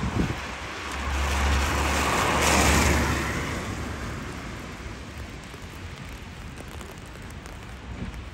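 A vehicle passing on a wet road, its tyre hiss and rumble swelling to a peak about three seconds in and then fading. Under it runs the steady hiss of falling sleet and rain.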